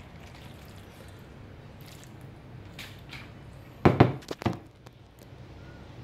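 Metal spoon and wooden spatula scraping and scooping sauced macaroni around a frying pan, with soft wet squishing and light clicks. About four seconds in comes a quick cluster of four or five loud knocks of the utensils against the pan, over a low steady hum.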